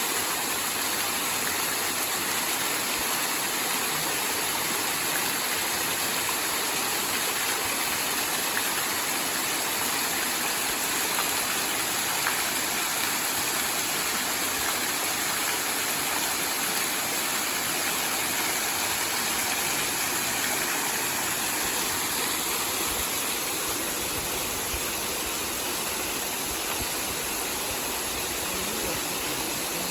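Waterfall: a steady, unbroken rush of falling water. A low rumble joins in during the last several seconds.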